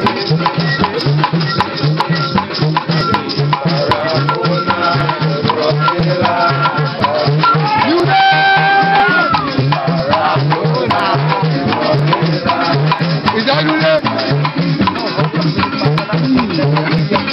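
Live Trinidad parang music: strummed cuatro with rattling hand percussion and a steady low bass pulse, with voices singing over it.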